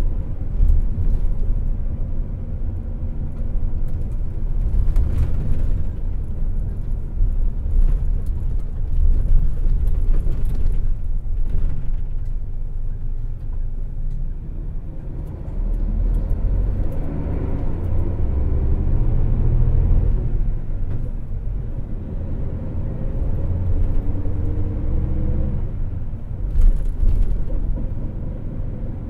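Hino Selega LKG-RU1ESBA coach's straight-six diesel running, heard inside the passenger cabin: a steady low engine and road rumble, with the engine note rising under acceleration twice in the second half.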